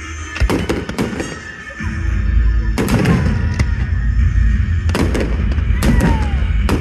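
Fireworks going off: several sharp bangs and crackles in clusters, a couple with a short falling whistle, over loud music with heavy bass.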